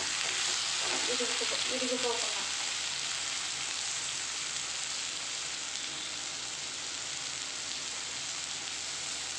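Raw banana slices frying in oil in a steel kadai, with a steady sizzling hiss.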